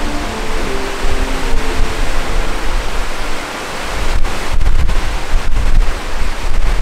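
Wind buffeting the microphone over the rush of sea surf: a loud, even rushing with heavy low rumbling gusts that grow stronger in the second half. The last notes of background music fade out in the first second.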